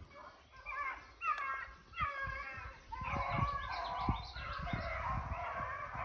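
A pack of rabbit hounds baying on a running rabbit, several voices calling over one another, with wind gusting on the microphone.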